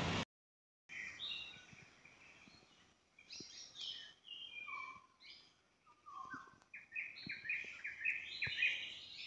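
Several birds singing and calling: a run of short whistled notes and chirps, some in falling steps, getting busier and louder in the second half.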